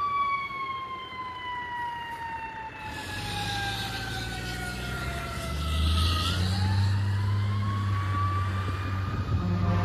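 Fire truck siren, one tone falling slowly for about six seconds and then rising again, over the truck's diesel engine rumble, which grows louder from about three seconds in as the truck passes.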